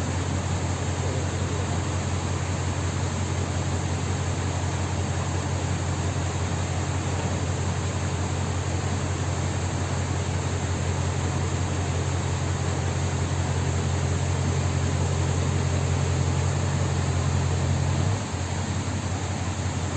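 Steady low engine drone over a constant hiss. About eighteen seconds in, part of the hum drops away and the drone runs on a little lower.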